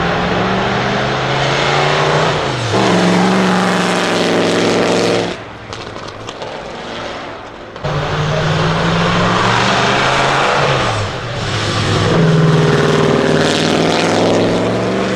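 1937 Mercedes-Benz W125's 5.7-litre supercharged straight-eight running loud, its revs rising and falling. About five seconds in the throttle comes off for a couple of seconds, then it opens up again.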